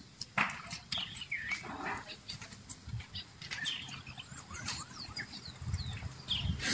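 Birds chirping and calling in many short, quick notes, mixed with scattered sharp cracks and pops and a low rumble that swells near the end.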